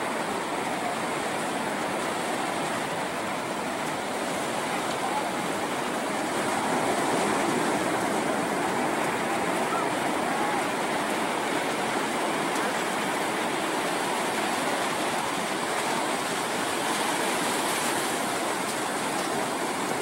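Ocean surf washing onto a beach: a steady rush of breaking waves that swells a little louder about six seconds in.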